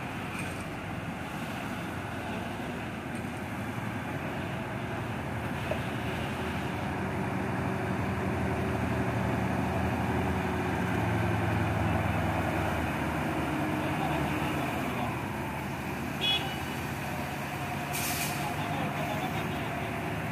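Engines of a crawler crane and forklift running, their pitch rising and falling through the middle as the load is worked. A short high beep comes about sixteen seconds in, then a brief hiss.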